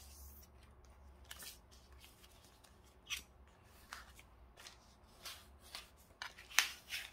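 A sheet of paper rustling and scraping under fingers as it is folded and its creases pressed flat, in short scattered strokes; the loudest comes near the end.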